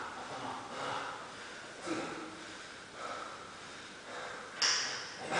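A man breathing hard and rhythmically, about one loud breath a second, recovering between clean and jerk reps. Near the end comes a sharper, louder hissing breath as he sets up to lift the barbell.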